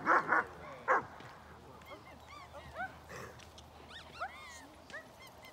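German Shepherd dogs barking loudly a few times in the first second, then a run of high, short whines and yips that rise and fall in pitch.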